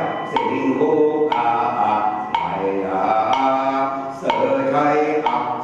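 Voices chanting together to a wooden block struck about once a second.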